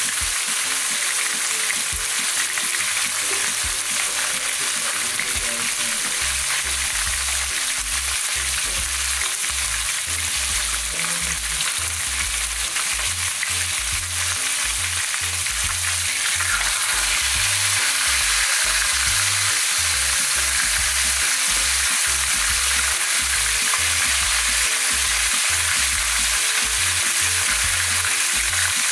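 Fish frying in shallow oil in a nonstick pan: a steady sizzle that grows a little louder about halfway through.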